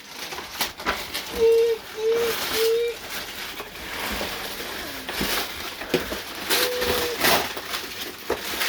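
Paper and plastic packaging rustling and crinkling as a present is opened. Three short hoot-like tones of one pitch come in quick succession about a second and a half in, and a longer one follows near the end.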